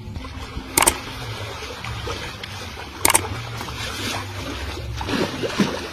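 Water splashing and trickling, with two sharp clicks, one about a second in and one about three seconds in.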